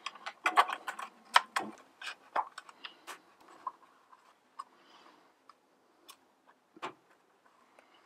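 Clicks, taps and light rattles as a metal-cutting blade is worked onto the wheels of a Ryobi 18-volt ONE+ portable bandsaw and its plastic frame is handled. The clicks come thick and fast for the first few seconds, then thin out to an occasional knock.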